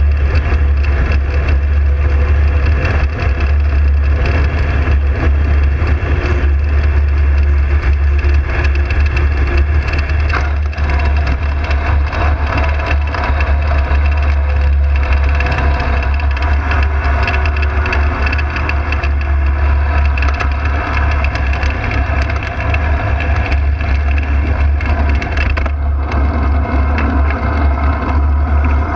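Ultralight aircraft's engine running under heavy wind rumble on the open-cockpit microphone during the landing approach and touchdown, steady and unbroken, with a faint falling note partway through. The high hiss lessens near the end as the aircraft rolls out on the runway.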